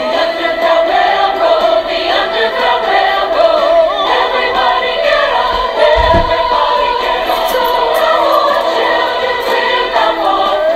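Music with a choir singing: several voices holding wavering sung notes. A short low thud comes about six seconds in.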